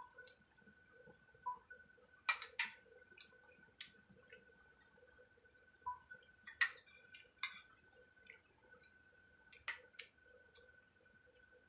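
Kitchen utensils and dishes clinking and clicking now and then, in a few short clusters, over a faint steady high whine.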